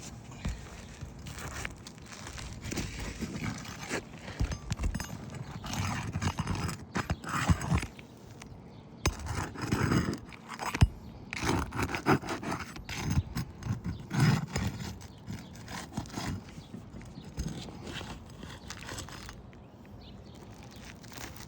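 Irregular scraping, tapping and knocking on an asphalt shingle roof as a damaged, creased shingle is worked loose for removal. There are sharp clicks among the scrapes, and it quiets near the end.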